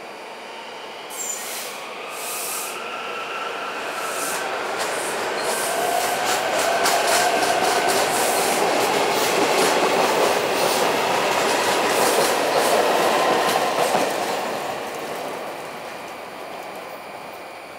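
SEPTA Silverliner V electric multiple-unit train pulling out and passing close by. Its motors whine, rising slowly in pitch as it gathers speed, then wheel clicks rattle quickly over the rail as the cars go by. The sound is loudest as the cars pass and fades away near the end as the train leaves.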